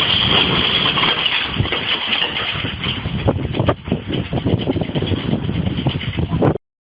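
An engine running amid many clattering knocks and rattles, cutting off abruptly near the end.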